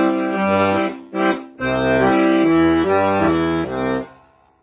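Accordion playing a left-hand bass-and-chord accompaniment: low bass notes change under held chords, with the bass notes taken out of their usual order. The playing stops about four seconds in and the sound dies away.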